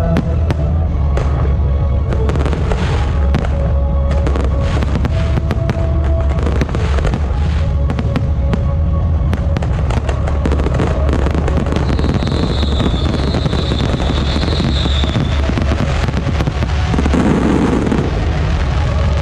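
Fireworks going off in a dense run of cracks and pops, over steady music, with a high whistle for a few seconds past the middle.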